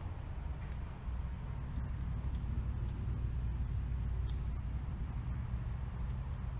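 A cricket chirping steadily in short chirps, about two a second, over a low rumble.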